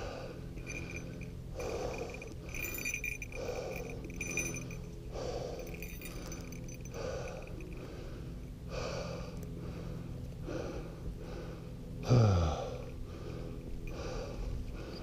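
A person breathing hard and evenly while walking, about one breath every second and a half. Near the end comes one short, low grunt that falls in pitch, the loudest sound here.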